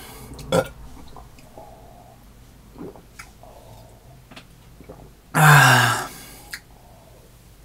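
Small sips and swallows from a mug, then one loud burp a little past halfway, about half a second long, with a low pitch that falls.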